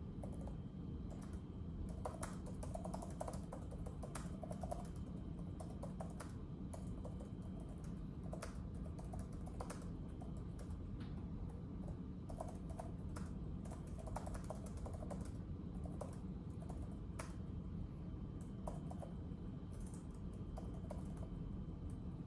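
Typing on a keyboard: a run of irregular soft key clicks with short pauses, over a steady low background hum.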